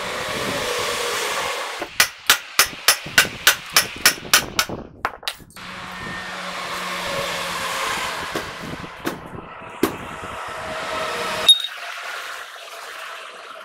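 A run of about ten sharp, evenly spaced hammer blows on metal, about three a second, during work on a truck's planetary wheel hub. Steady rushing noise comes before and after the blows, and one more sharp metal knock sounds near the end.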